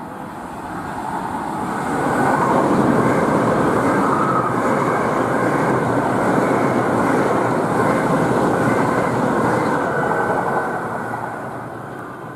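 A Great Western Railway Intercity Express Train passing close by on the main line, a steady rush of wheels on rail that builds over the first two seconds, stays loud for about eight seconds, then fades as it goes away.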